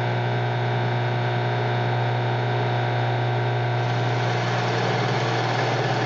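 Drill press motor running steadily, its 1-inch Forstner bit being fed down to bore a hole in a wooden board. It gives a steady machine hum with a strong low drone.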